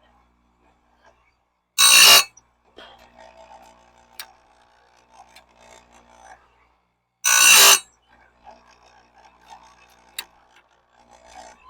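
Electric chainsaw-chain sharpener's grinding wheel grinding a bandsaw blade tooth: two loud, brief grinding screeches about five seconds apart, with faint clicks and handling of the blade in between as it is indexed to the next tooth.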